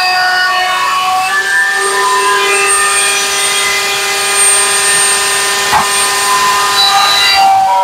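Electric wood router spinning at high speed in a router table, a steady high whine while pine pieces are fed past the bit to shape their edges. A single sharp click about six seconds in.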